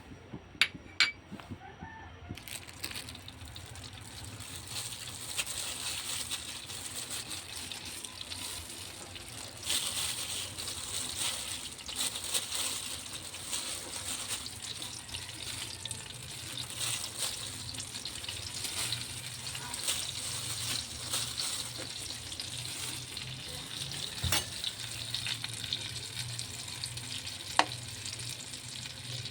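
Food frying in a pan: a steady sizzle that builds over the first few seconds, then holds. Two sharp clicks come just before it starts, and a couple more single knocks come later.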